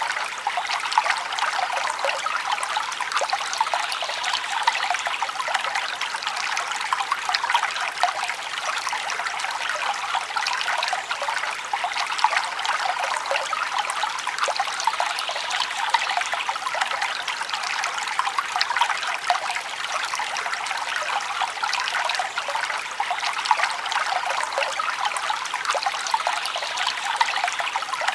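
Forest stream trickling and babbling over stones: a steady wash of running water full of small quick splashes, with little low rumble.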